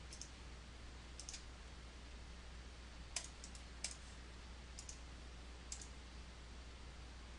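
Computer mouse button clicking: about ten short, faint clicks scattered irregularly, some single and some in quick pairs, over a low steady hiss.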